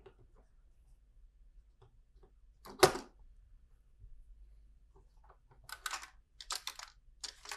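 Plastic LEGO pieces clicking as they are handled and pressed together: one sharp click about three seconds in, then a quick run of small clicks and rattles near the end.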